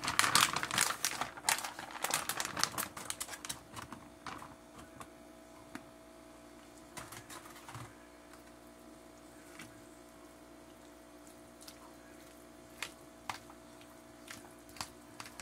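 Plastic packaging crinkling, with quick light clicks and taps, as cooked chicken strips are shaken from their bag into a plastic container. After about four seconds only occasional single taps remain over a steady faint hum.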